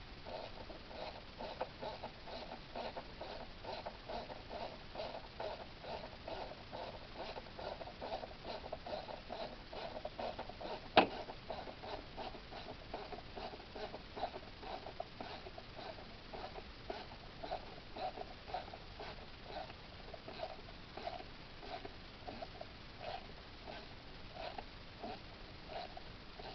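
A 1/4-inch ratchet clicking rapidly and steadily as it runs an intake manifold bolt in. One sharp knock about eleven seconds in.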